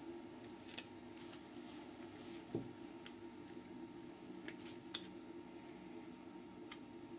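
Light metallic clicks and scrapes of a small hand tool on the Bosch HEI distributor's stator, as its three small recessed screws are undone. A few sharp ticks and one duller knock are spread over several seconds, over a steady low hum.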